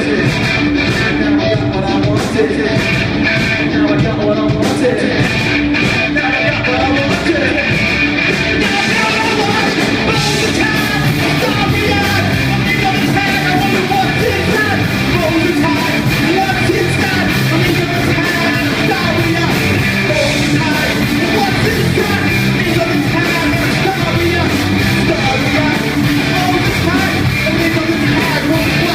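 Live rock band playing loud, fast music with electric guitars and drums, with a singer's voice over it.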